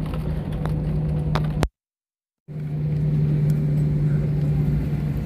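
Airliner cabin noise while taxiing after landing: the engines' steady hum over a low rumble, with a few faint ticks and rattles. The sound drops out completely for under a second about a third of the way in, then comes back.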